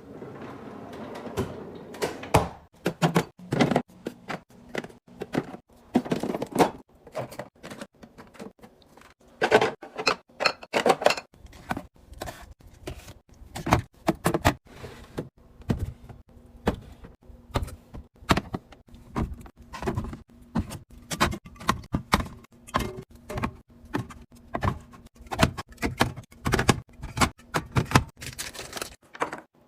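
Irregular run of clicks, taps and thuds from containers, lids and grocery items being handled and set down while a refrigerator is restocked.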